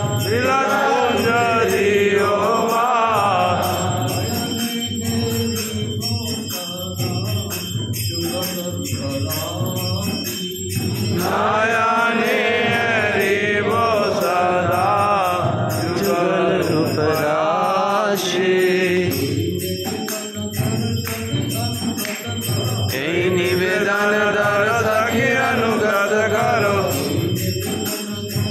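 Group of men singing a Hindu devotional kirtan to Tulasi in chorus, with a jingling metal percussion keeping time; the singing swells and eases in phrases every few seconds.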